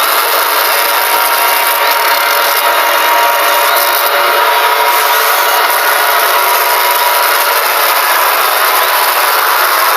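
Mock emergency alert system alarm, boosted so far that it turns into a loud, constant wall of distorted noise with faint steady tones underneath. It does not break or change in pitch.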